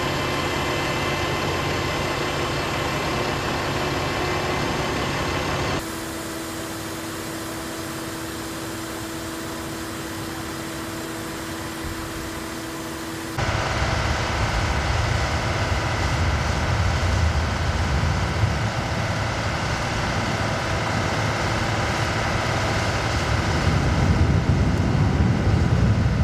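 Heavy military truck and generator engines running steadily. A quieter stretch with one steady hum starts about six seconds in; from about thirteen seconds a louder low rumble takes over and grows near the end.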